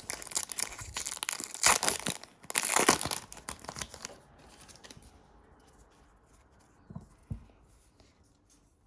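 A trading card pack's wrapper being torn open and crinkled, loudest in two tearing bursts about two and three seconds in, then going quiet with two soft knocks about seven seconds in.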